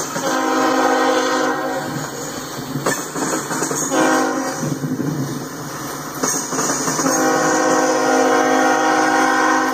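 Freight train locomotive horn sounding a long blast, a short one about four seconds in, and another long one from about seven seconds in, over the steady clatter of freight car wheels rolling over the rails.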